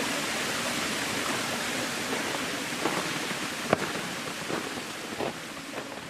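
Waterfall rushing: a steady, even noise of falling water, easing slightly near the end, with a single sharp click nearly four seconds in.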